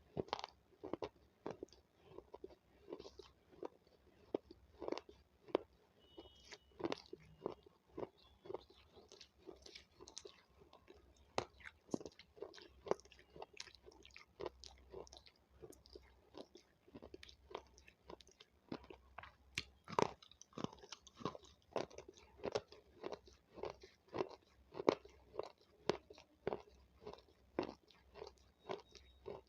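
Raw capsicum (bell pepper) being bitten and chewed close to the microphone: a steady run of crisp, wet crunches, about two a second.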